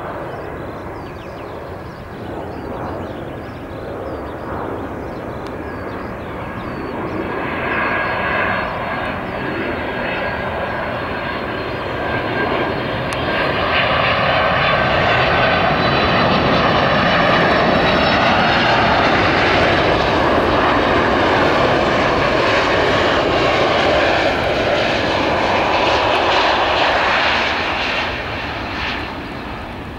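Boeing 767-300ER airliner on final approach, its jet engines making a steady rushing noise with a faint high whine. The sound swells as the plane comes closer, stays loud through the middle, and falls away near the end as it flies past toward touchdown.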